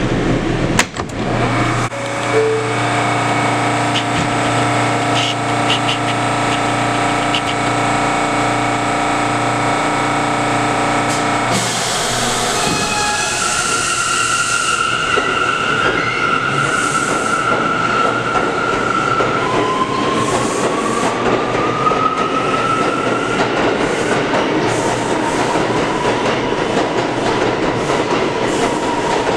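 New York City Subway C train standing at the platform with a steady electrical hum, then pulling out. About halfway through, its traction motors whine, rising in pitch as it accelerates, over steady wheel and track noise.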